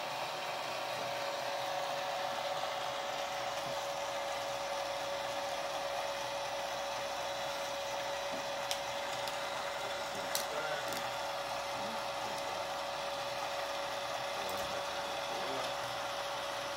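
Small battery-powered motor of a Tree Mendous ornament decorator spinning a plastic ornament ball: a steady whir with a high hum. A few light clicks come about halfway through.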